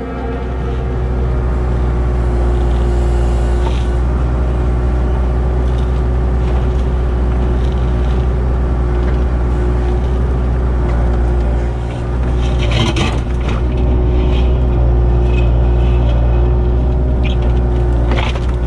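Excavator diesel engine running steadily, with a few brief knocks and scrapes of the machine working about two-thirds of the way through and again near the end.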